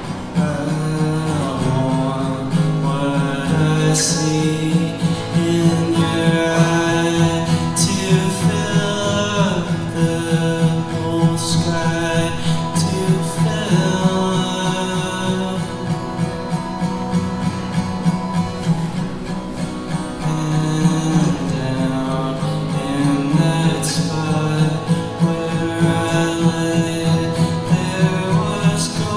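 A man singing a song live while accompanying himself on an acoustic guitar.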